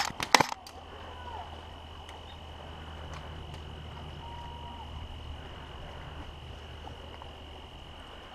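Airsoft gas pistol shots: a quick string of about three sharp cracks in the first half second. After that only faint outdoor background with a thin steady high tone.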